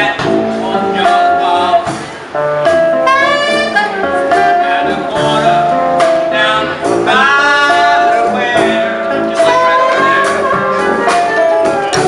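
Street jazz band playing: saxophones over a drum kit, with a man's voice singing in bending phrases.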